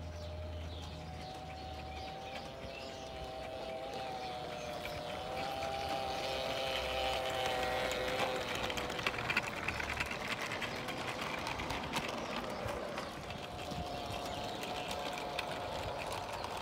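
Accucraft Baldrick garden-railway locomotive and its wagons running past on the track. Wheels click over the rail joints, most densely in the middle as the train comes closest, over a steady humming tone.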